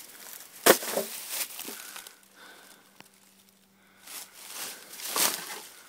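Footsteps crunching and rustling through dry leaves and brush, with a sharp crack under a second in and more rustling bursts near the end.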